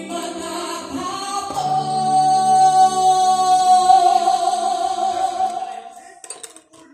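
Live band with a woman singing into a microphone: she holds one long high note for several seconds over the band, and then the music dies away near the end.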